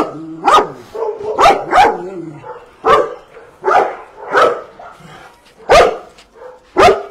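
Dogs barking: about nine sharp barks, each loud and separate, coming every second or so.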